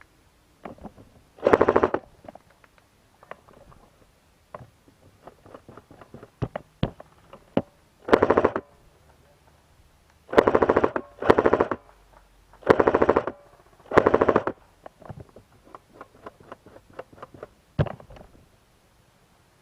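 Airsoft guns firing rapid bursts, about six of them over the stretch, each half a second to a second long, with fainter single shots and clicks in between.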